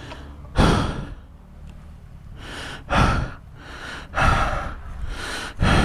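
A man breathing hard and fast, a run of loud gasping breaths in and out about a second apart, winded and exhausted from pushing his dirt bike three-quarters of a mile.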